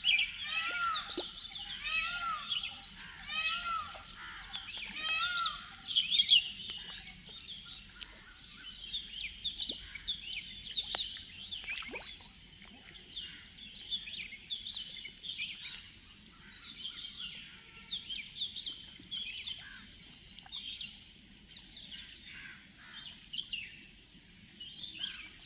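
Several birds chirping and calling over one another. For the first six seconds one bird repeats a loud arching call about once a second; after that the chorus thins to scattered chirps.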